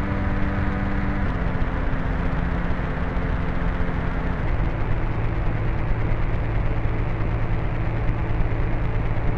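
Experimental sound-design drone: a dense, rumbling wash of noise under sustained low tones that step down in pitch about a second in and again about four seconds in.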